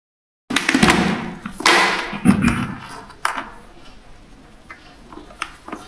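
After half a second of dead silence, handling noise of a strap-on action camera mount being fitted to a helmet: rustling and scraping of the straps and plastic against the shell for about two seconds, then quieter rubbing with a few light clicks and knocks.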